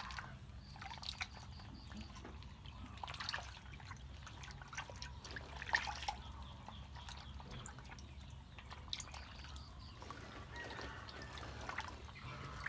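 Faint water dripping and trickling, with scattered small clicks and splashes over a steady low hum.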